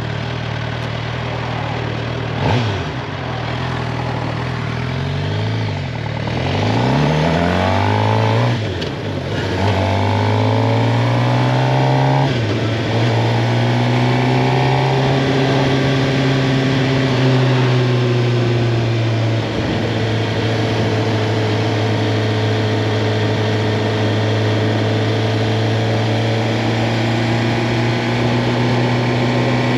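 Suzuki GSX-R750's inline-four engine idling, then pulling away with the revs climbing and dropping back through several quick upshifts, and settling into a steady cruise.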